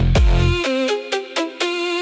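Electronic bass music: deep bass hits that fall in pitch, several a second, then the bass cuts out about half a second in, leaving a stepping synth melody over steady hi-hat ticks.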